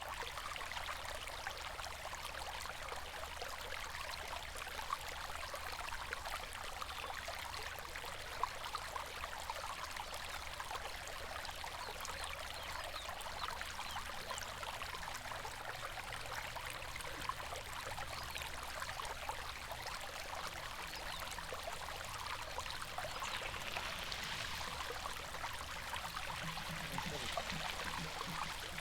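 A river flowing steadily, with continuous rushing and trickling of water over stones, swelling slightly near the end.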